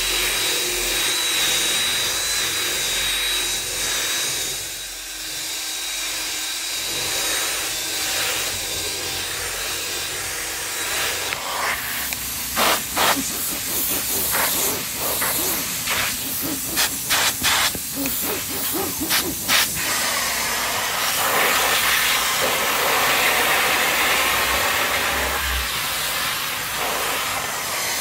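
Carpet-cleaning extractor hissing steadily through an upholstery extraction tool being drawn across fabric, with a string of short, loud bursts about halfway through.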